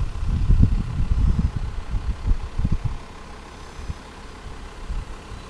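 Wind buffeting the microphone in irregular low gusts, stronger at first and easing off about halfway through.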